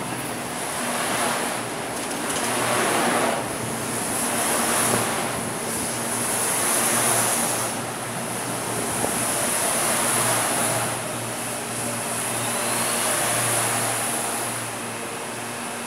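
Freight train rolling past close by: a rushing rumble of wheels on rail that swells and fades every few seconds. A steady low locomotive hum and a thin high whine run under it.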